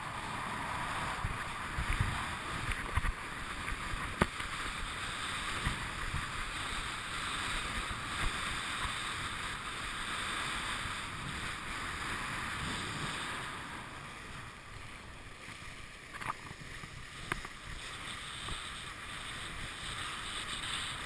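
Kiteboard running over choppy water with wind buffeting the camera's microphone: a steady rush of wind and water, broken by several sharp knocks.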